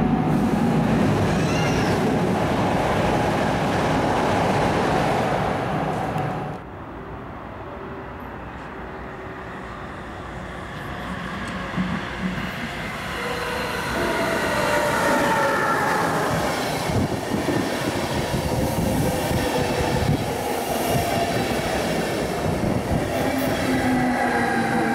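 ICE 3 (class 403) high-speed train running past at speed, cut off about six seconds in. Then an IRE200 push-pull train with Siemens Vectron class 193 electric locomotives approaches and passes close, growing louder about fourteen seconds in, its traction equipment whining in several tones over the rail rumble.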